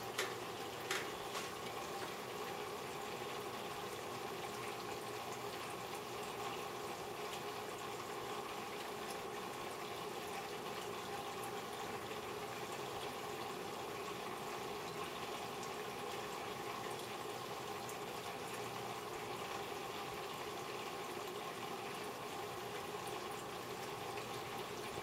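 Steady sound of moving water from a turtle tank's running filter and mist fogger, with a couple of light clicks about a second in.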